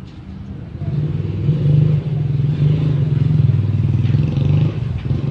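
An engine running close by, a steady low rumble that gets louder about a second in.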